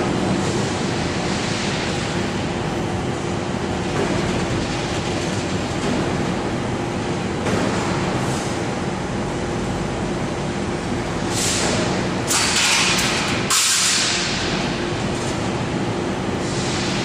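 Steel bar straightening and cutting machine running with a steady mechanical drone and a constant hum. About two-thirds of the way through, a few short, loud hissing bursts rise over it.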